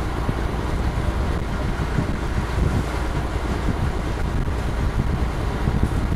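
Steady low rumble of a fishing boat's engine running, with wind buffeting the microphone.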